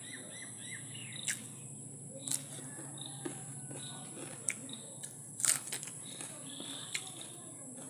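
Birds chirping in short calls over a steady high hiss, with a few sharp clicks and smacks from eating.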